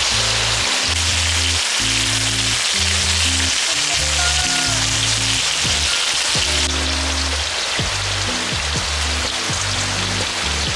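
Background music with a slow sequence of held bass notes, over a steady hiss.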